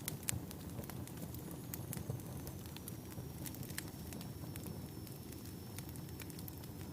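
Wood fire burning in a fireplace: a steady low rumble of flames with frequent sharp crackles and pops, the loudest just after the start and again about two seconds in.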